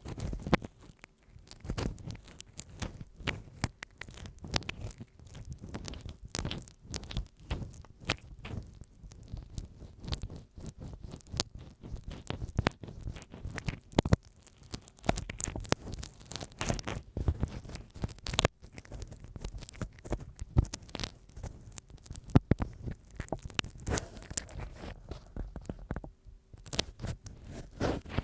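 Ear pick scratching and scraping over masking tape stuck on a microphone, heard very close: a dense, uneven run of crackly scratches with low rumbling thumps under them.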